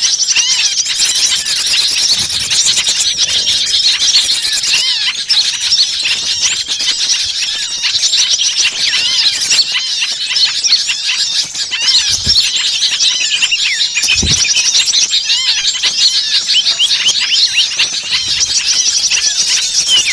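Dense chorus of many small songbirds calling at once, overlapping high chirps, squeaks and trills without a break. It is the agitated mixed-species chorus used as a lure call for small birds.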